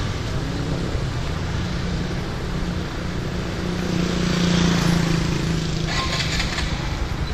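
Motorcycle engine running as the bike moves off and turns onto the street, its note getting louder and a little higher about four seconds in. A brief hiss comes near the end.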